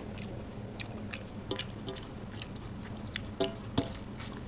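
Close-up mukbang eating sounds: wet chewing and mouth smacks of rice and curry, with fingers squishing and mixing rice on a metal plate. Short clicks and smacks come every so often, two louder ones near the end, over a steady low hum.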